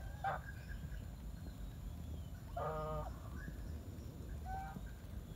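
Domestic geese honking in several short calls, the longest and loudest about two and a half seconds in.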